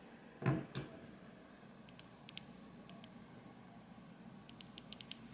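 Faint clicking: two soft knocks about half a second in, then scattered light clicks, with a quick run of them near the end.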